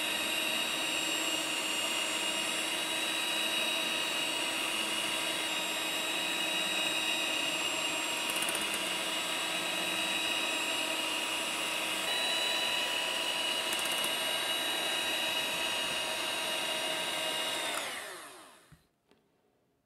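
Electric hand mixer running at a steady speed, its twin beaters whipping whole eggs and sugar in a glass bowl to a pale, thick foam for a sponge cake. The motor whine winds down in pitch and stops near the end.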